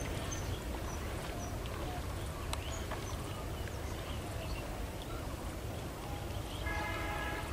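Open riverside ambience: a steady low rumble with scattered short, high bird chirps. Near the end a held, pitched call sets in.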